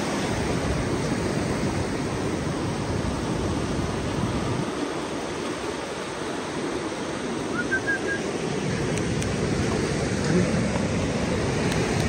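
Ocean surf washing up the beach in a steady, even rush of noise, with a few faint short high chirps about eight seconds in.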